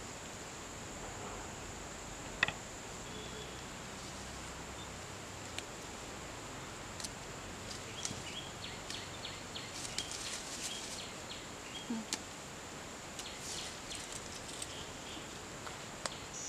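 Rural garden ambience with a steady high insect drone, and scattered small snaps and rustles of leaves being picked by hand in the second half.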